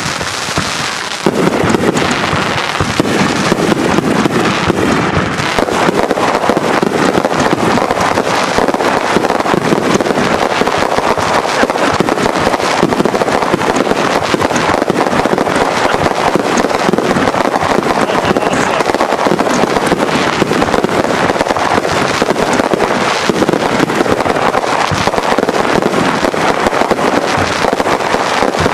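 Several consumer firework cakes firing together: a dense, unbroken barrage of rapid launch thumps and crackling bursts that kicks in about a second in.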